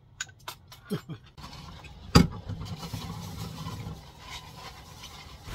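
Light clicks of plastic bowls being gathered and stacked, then dishwashing at a sink: a sharp clatter of dishes about two seconds in over a steady low hum and hiss.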